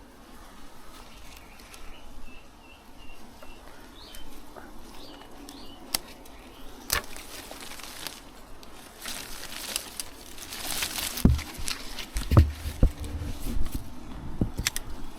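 Garden scissors snipping through branches and leaves: a few sharp snips, then a stretch of rustling foliage, and several low thumps near the end as cut material is handled.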